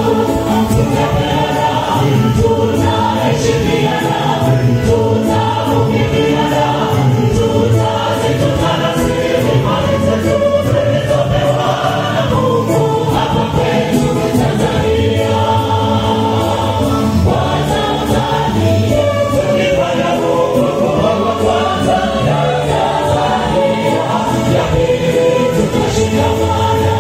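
Mixed choir of men's and women's voices singing a gospel song, loud and steady without a break.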